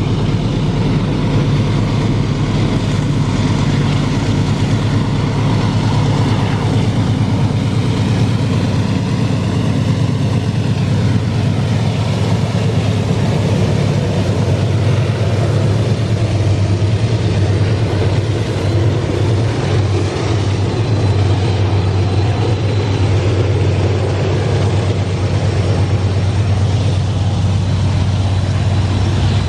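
A consist of five GE diesel-electric locomotives (C44EMi, AC44i and C30-7) working hard as they haul a heavy freight train up a steep grade, a loud steady deep engine drone as they pass.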